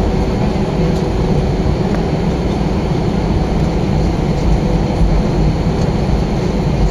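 Airbus A320 cabin noise: the jet engines and airflow heard from inside the passenger cabin as a steady, loud rumble with a low hum.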